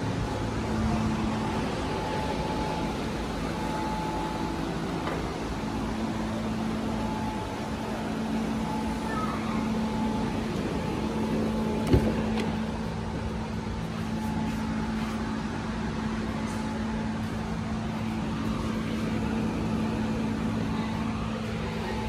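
A steady mechanical hum with a few faint steady tones, broken once about halfway through by a single sharp knock.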